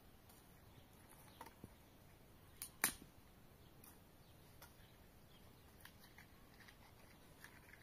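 Near silence broken by a few faint, short clicks and knocks, the loudest about three seconds in.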